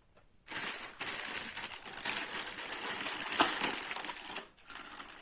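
Plastic packaging crinkling and crackling as it is handled and pulled open, with a sharper snap about midway.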